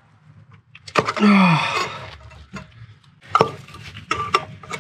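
Sharp clicks and knocks of hands and tools working a stuck part on an engine top. About a second in comes a short, loud vocal sound that falls in pitch.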